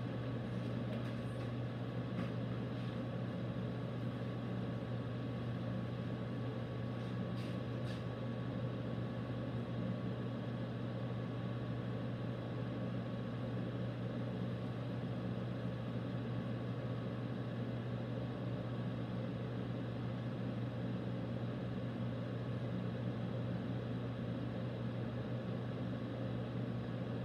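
A steady low mechanical hum, unchanging throughout, with a few faint clicks about a second, two seconds and eight seconds in.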